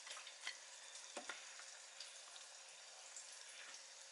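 Faint sizzling from a tortilla warming on an electric contact grill, with a few soft taps in the first second and a half.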